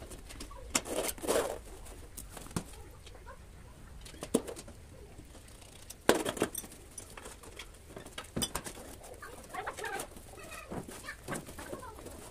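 Hand-handling noise as a rubber inner tube is pushed into a motorcycle tyre on a spoked steel rim: rubbing and rustling of rubber with scattered knocks against the rim. The loudest knock comes about halfway through.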